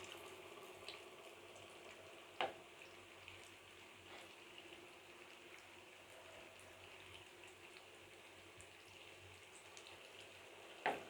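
Spring rolls frying gently in oil over a low flame: a faint, steady sizzle, with a sharp click about two seconds in and another near the end.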